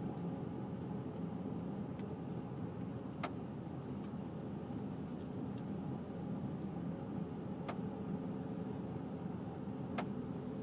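Infiniti G35 coupe running with a steady low road-and-drivetrain rumble, punctuated by about four sharp clicks from the rear at irregular intervals of a few seconds. The owner rules out the rear axle click and suspects a worn sway bar bushing.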